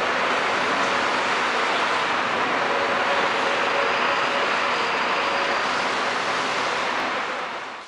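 Steady rushing noise with a few faint humming tones, fading out near the end.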